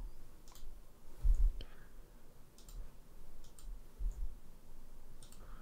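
A few scattered computer mouse clicks and keyboard key taps, with a couple of soft low thumps, the louder one just over a second in.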